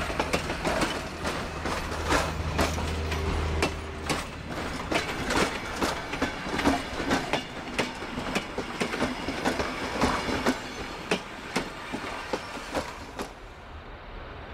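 Passenger carriage wheels clicking and clattering over rail joints as a heritage train rolls past, with a steady low hum in the first few seconds. The clatter stops about a second before the end.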